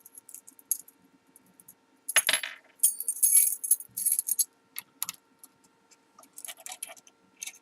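Metal keys clinking and jangling, with small clicks, as a depth key and a key blank are handled and swapped in the carriage of a key-cutting machine; the busiest and loudest handling comes about two to four seconds in.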